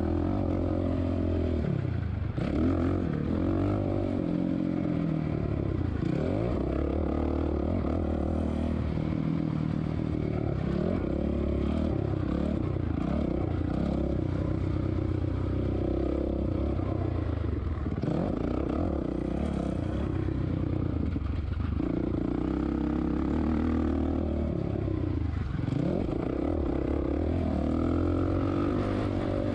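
2007 Suzuki RM-Z450 motocross bike's single-cylinder four-stroke engine under race throttle, its pitch climbing and dropping again and again as it is revved hard, backed off and shifted between corners and straights.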